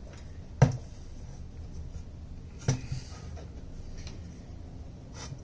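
Small Bennett typewriter being handled and set down on a hard surface: two sharp knocks about two seconds apart, with a fainter one near the end.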